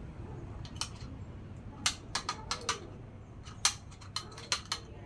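Lory parrot making a string of about a dozen short, sharp clicks, irregularly spaced and bunched in quick runs, over a low steady hum.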